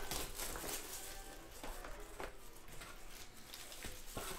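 Faint background music under the rustling and clicking of hands opening a trading-card box and handling a foil-wrapped card pack.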